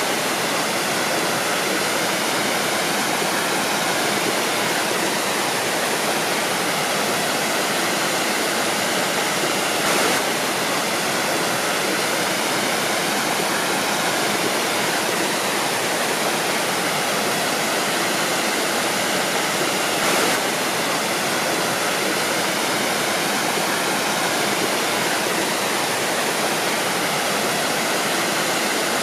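Waterfall rushing: a steady, dense roar of falling water, with brief small jumps in level about ten and twenty seconds in.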